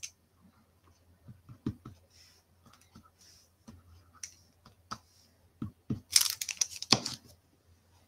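Small taps and clicks of a liquid glue bottle and thin paper die-cuts handled on a craft mat, with a louder rustle of paper being picked up and moved about six to seven seconds in.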